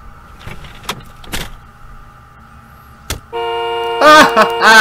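Car horn blaring steadily for nearly two seconds, starting about three seconds in, with a loud voice over it near the end. A few sharp knocks come before it.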